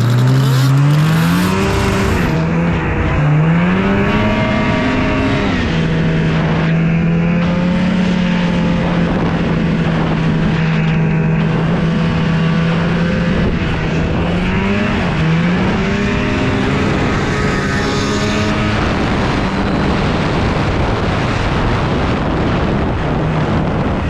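Snowmobile engine running under throttle: its pitch climbs over the first few seconds, holds steady for several seconds, dips and climbs again about halfway through, then settles lower for the last few seconds.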